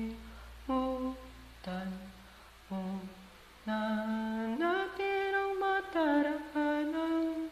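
A person humming a wordless melody without accompaniment: four short notes, then longer held notes, with a slide up in pitch about halfway through.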